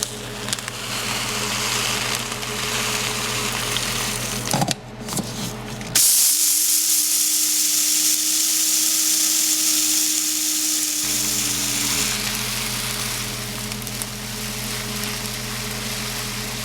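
Electric blade coffee grinder whirring as it grinds flax seeds into meal, with a brief break about five seconds in and a louder, higher stretch afterwards.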